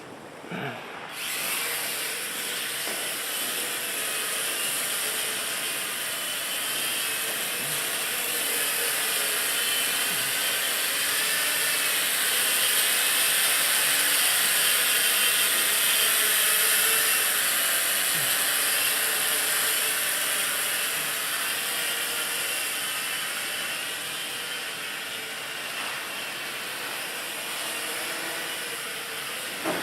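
WL Toys V949 micro quadcopter's four small motors and propellers buzzing in flight, starting up about a second in. The whine rises and falls a little as the throttle is worked to hold the hover.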